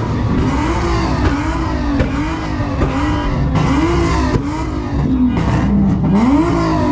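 A car engine revving hard and repeatedly, its pitch climbing and dropping about once a second, with a longer climb near the end.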